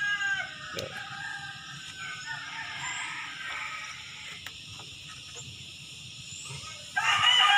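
A rooster crowing: one crow tails off in the first second, and another loud crow starts near the end. A few faint taps come in the quieter stretch between.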